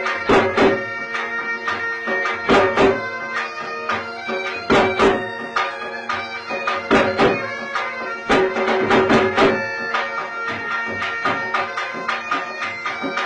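Traditional folk music: a droning pipe tune, bagpipe-like, played over drum strokes in a repeating rhythm with louder paired beats about every two seconds.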